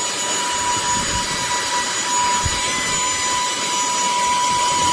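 Cordless handheld vacuum cleaner running, its small motor giving a steady high-pitched whine over the rush of air.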